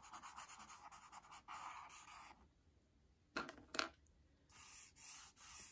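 Charcoal stick scratching on sketchbook paper in rapid repeated downstrokes as a tone is shaded in, stopping about two and a half seconds in. Two short, sharper sounds follow about a second later.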